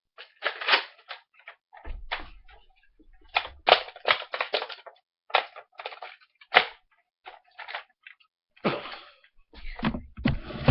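A rapid, irregular run of short plastic clicks and knocks, a few with a dull thump, from a Nerf toy blaster being handled; a rougher rattle near the end.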